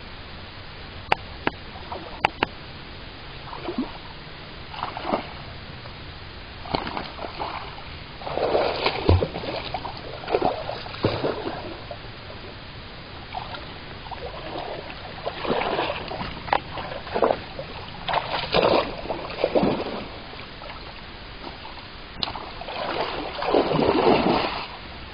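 Water splashing at the surface in irregular bursts of about a second each, from a hooked pike thrashing close in at the bank, the last and loudest as a hand reaches into the water for it. A few sharp clicks come about one and two seconds in.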